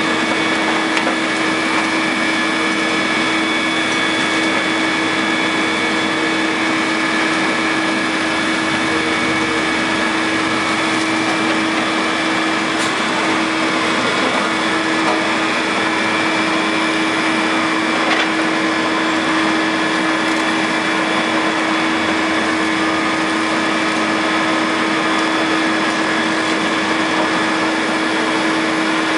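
Caterpillar 330C hydraulic excavator running steadily while its demolition shear works a concrete bridge pier, with a low hum under several high whining tones. A couple of faint knocks come through, about 13 and 18 seconds in.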